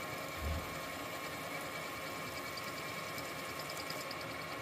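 Milling machine spindle running with a 5/16-inch twist drill feeding slowly through a steel shaft and worm gear hub: a steady machine sound with a constant high tone. There is a brief low bump about half a second in.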